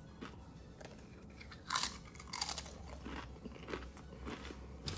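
A person biting into and chewing a Paqui One Chip Challenge tortilla chip: a crisp crunch a little under two seconds in, then small irregular crunches of chewing.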